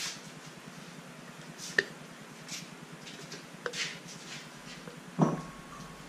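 Metal parts of a motorcycle brake caliper being handled on a workbench: a few light clicks and clinks, and about five seconds in a louder metallic clunk that rings briefly.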